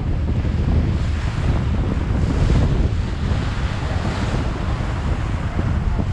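Wind buffeting the microphone over the rush of water along the side of a moving boat, the water's hiss swelling briefly twice, about two and a half and four seconds in.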